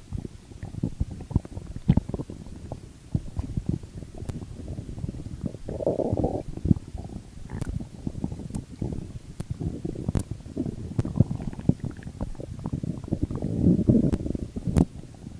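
Stomach growling and gurgling: a run of quick crackly pops and bubbly rumbles, swelling louder about six seconds in and again near the end.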